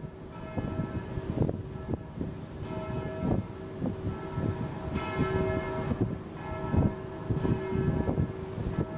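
Church bells ringing, their tones swelling and fading over and over, over a steady background of low rumbling noise.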